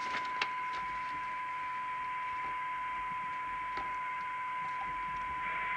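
Steady single-pitch test tone from the loudspeaker of a DNT Contact 40 CB radio, with hiss behind it. The receiver is picking up and demodulating a tone-modulated test signal from a signal generator, which shows the set is receiving.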